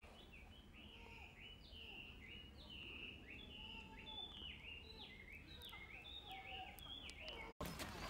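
A songbird singing a long, quick run of short whistled notes, about two or three a second, over a faint low outdoor rumble. The song breaks off abruptly near the end.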